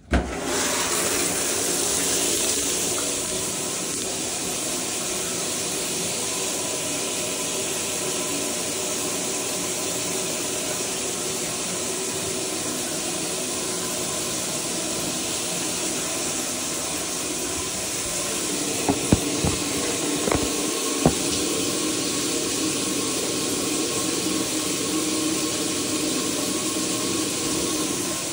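Shower water turned on and running steadily, a constant spray of water hiss. A few short knocks sound about two-thirds of the way through.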